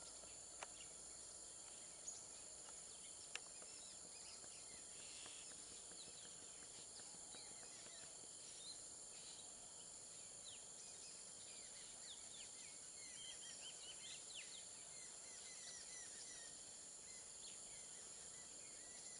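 Faint outdoor ambience: a steady high-pitched insect drone with many short bird chirps scattered throughout, and three faint clicks in the first few seconds.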